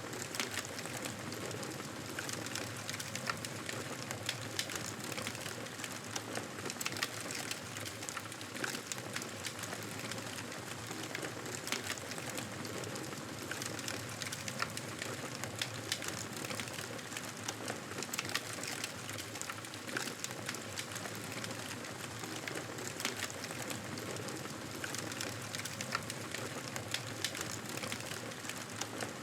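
Wood fire crackling steadily, with frequent sharp pops and snaps over a constant hiss.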